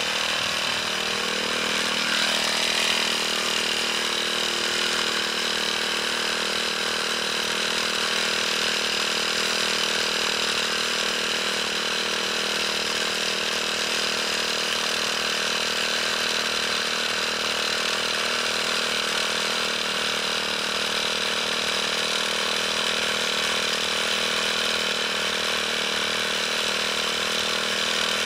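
Small engine of a backpack power sprayer running steadily at a constant pitch, its note rising briefly in the first couple of seconds.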